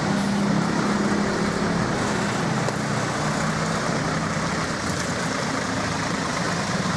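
Bus engines running on the road, with steady traffic noise. The engine sound is strongest in the first couple of seconds, as a bus passes close, and then eases a little.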